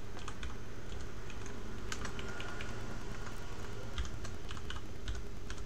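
Computer keyboard keys being typed, a run of short irregular clicks, over a steady low hum.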